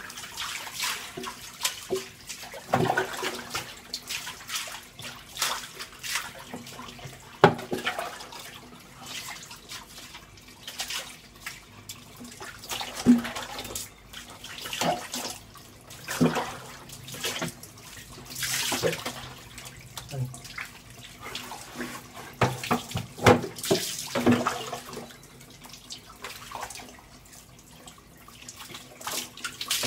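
Water scooped from a bucket with a mug and poured over a dog's coat, splashing onto the dog and the tiled floor in irregular pours every second or two, as the shampoo is rinsed off.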